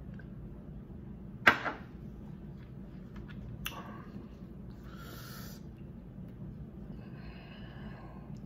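Eating a seafood boil with gloved hands: one loud sharp crack about a second and a half in, a smaller crack near four seconds, then short hissing sucks and mouth noises.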